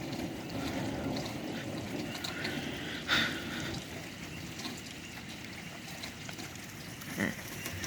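Steady rain falling and trickling, with one brief, sharper sound about three seconds in.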